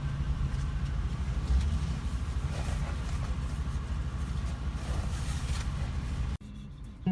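Steady low rumble of a moving vehicle, cut off sharply near the end.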